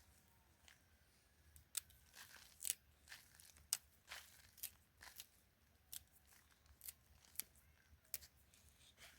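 A run of short, crisp crunching cuts, about a dozen at uneven intervals, starting about a second and a half in and thinning out near the end.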